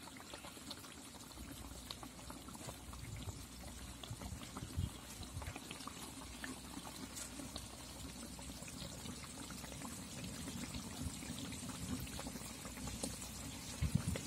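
Fish curry simmering in an aluminium pot, a faint steady bubbling with small scattered pops.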